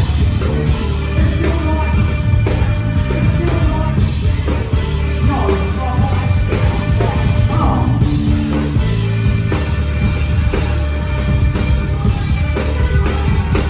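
Live hip-hop band playing a steady groove, with a drum kit and bass guitar underneath and a voice or horn line gliding over it about midway.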